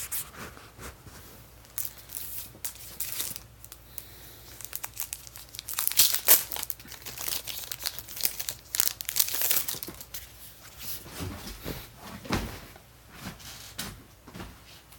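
Packaging crinkling and rustling as it is handled during an unboxing, in irregular bursts, loudest and busiest from about six to nine and a half seconds in.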